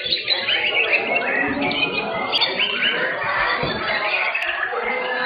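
Many caged white-rumped shamas (murai batu) singing at once in competition: a dense, overlapping tangle of quick chirps and whistled phrases.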